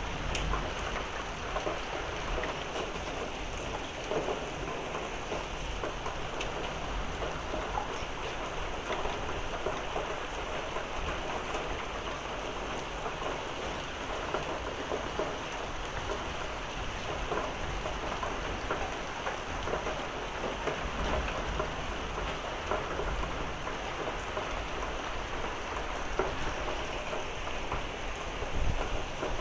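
Heavy thunderstorm rain pouring steadily, with scattered sharp ticks of hailstones striking and occasional low rumbles of thunder.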